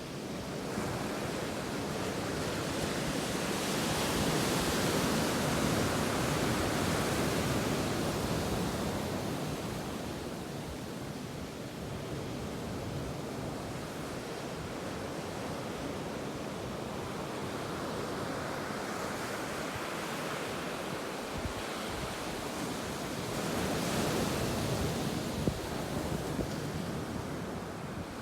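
Ocean waves breaking and washing on a beach, a steady rush that swells twice, first a few seconds in and again near the end, with wind on the microphone.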